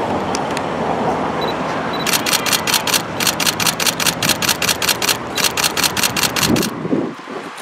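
Camera shutters firing in rapid bursts, about six clicks a second, starting about two seconds in and stopping near the end, over a steady rumble of car and street noise.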